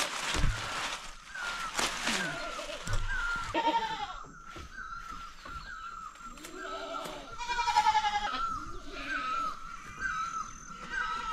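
Goats bleating at their pen: several bleats, the loudest about eight seconds in. Under them, a short high chirp repeats about once a second.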